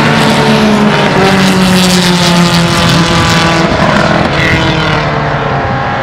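A group of historic single-seater racing cars passing one after another at speed, their engines loud and overlapping. The sound eases slightly near the end as the pack moves away.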